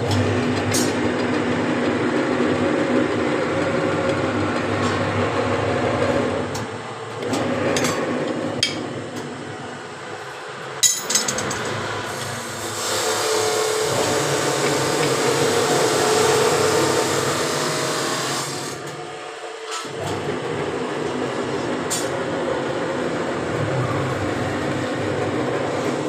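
Workshop machinery running steadily with a low hum, broken off briefly a few times, with occasional sharp metal clicks and knocks.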